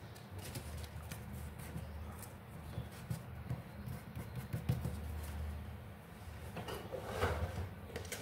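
Faint rustling and light clicks of a small glued, folded paper strip being pressed and smoothed by hand, over a steady low hum.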